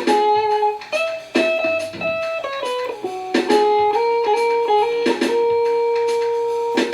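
Guitar playing a single-note jazz line, short runs of notes moving up and down, settling on one long held note for the last couple of seconds. Sharp percussive hits land every second or two behind it.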